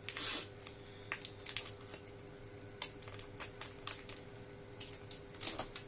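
Thin plastic protective film on a new smartphone crinkling and crackling as it is peeled off by hand, in scattered crackles with the loudest rustle at the very start.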